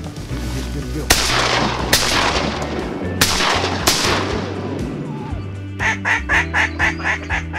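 Four shotgun blasts within about three seconds, each trailing off in an echo. Near the end comes a quick run of about eight duck quacks. A low, steady music bed runs underneath.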